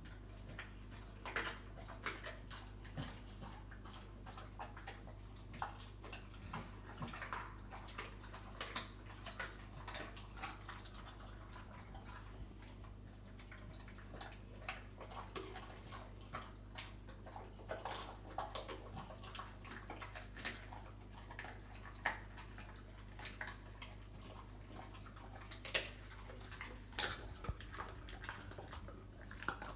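An American Bully dog chewing and crunching chicken bones: irregular crunches and clicks, with a few sharper cracks in the second half.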